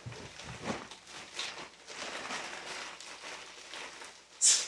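Rustling and light knocks of baby-monitor cameras and packaging being handled, with a short sharp hiss near the end.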